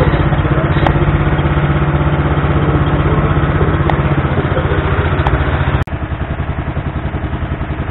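Engine of a wooden river passenger boat running steadily under way, a fast even pulsing. About six seconds in the level drops suddenly and the pulsing becomes more distinct.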